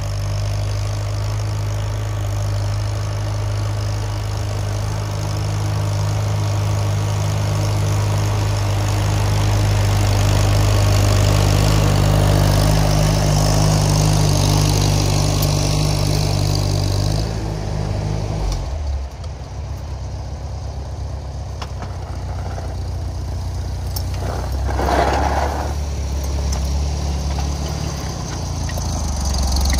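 Farmall 230 tractor's four-cylinder gasoline engine running steadily under way. A little over halfway through, the engine note drops lower and turns rougher as the tractor slows.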